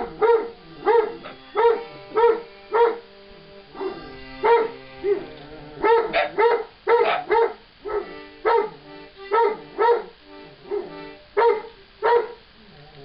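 Giant schnauzer barking over and over, about one and a half barks a second with a short lull near the middle, in protest at an instrument being played; the instrument's steady held notes sound underneath.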